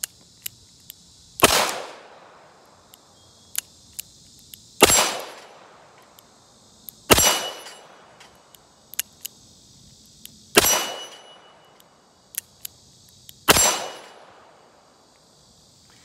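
Smith & Wesson Model 686 .357 Magnum revolver firing five single shots, two to three and a half seconds apart, each shot's report trailing off in an echo over about a second. Fainter sharp clicks fall between the shots.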